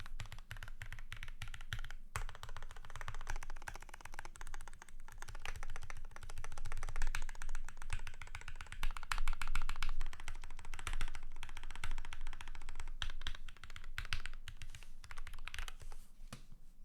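Fast, continuous typing on a Keychron K6 mechanical keyboard with lubed Gateron Brown tactile switches, a steel plate and PBT Cherry-profile keycaps: a dense stream of keystroke clacks with a brief pause about two seconds in, thinning out near the end.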